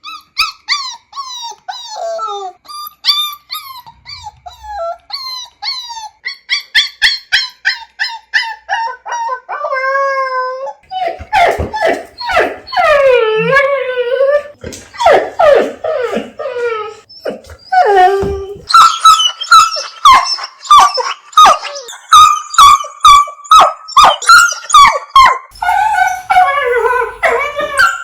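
Dogs whining and crying. First comes a string of short, high-pitched, falling whimpers. About a third of the way in they give way to lower, longer, wavering cries, and then to rapid, loud, repeated whines.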